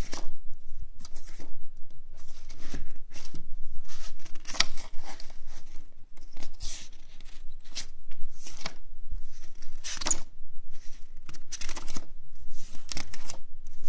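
Sheets of paper rustling and sliding as they are handled and shuffled, in a string of irregular swishes.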